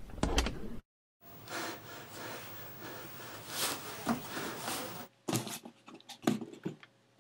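A wooden door opening, then a long stretch of rubbing and rustling as a cardboard box is handled and passed over, with a few short taps near the end.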